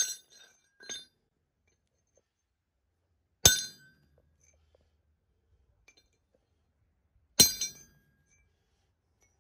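Steel striking steel: sharp metallic clinks that ring briefly. A light one comes at the start and a faint one about a second in, then two loud ones about four seconds apart.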